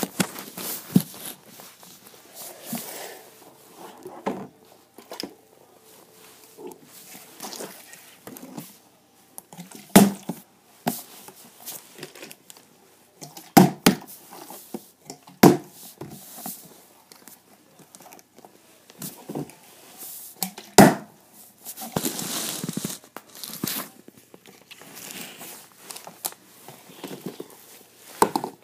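Plastic water bottles being handled and set down on a magazine on a wooden floor: several sharp knocks as bottles are placed, with rustling and crinkling of plastic between them.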